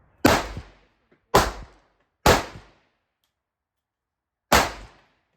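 Four gunshots, the first three about a second apart and the fourth after a pause of about two seconds, each with a short echoing tail.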